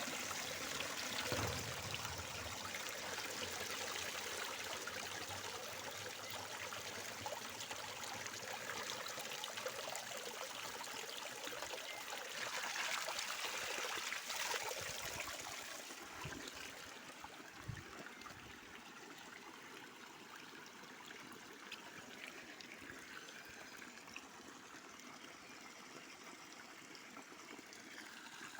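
Natural spring water running and trickling steadily, louder for the first half and fainter from about halfway on.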